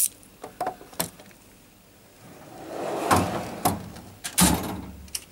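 Steel Snap-on tool chest drawers being worked: a few light clicks, then a drawer sliding along its runners and a heavy clunk as a drawer shuts or stops near the end.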